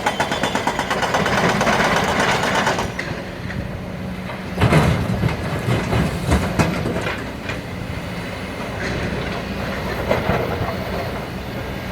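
Heavy quarry machinery running, with a steady engine and a fast, even rattling. About halfway through there is a run of loud knocks and clatters.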